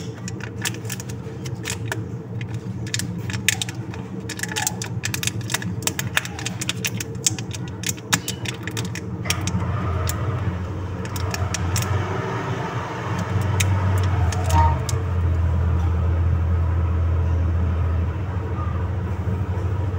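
Plastic cup and lid being handled: a run of quick clicks and crackles. From about halfway through, the low steady rumble of a motor vehicle's engine comes in and grows louder.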